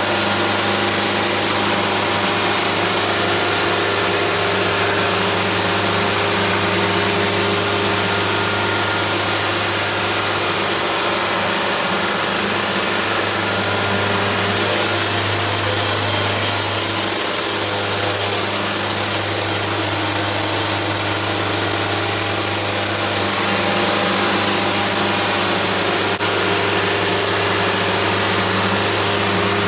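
Wood-Mizer LT70 band sawmill running steadily as it saws a log, a constant engine hum under a strong hiss. It gets a little louder about halfway through.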